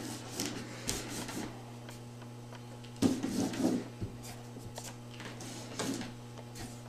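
Brush rubbing and scraping on a large sheet of photographic paper as it is painted by hand, with scattered light knocks over a steady low hum.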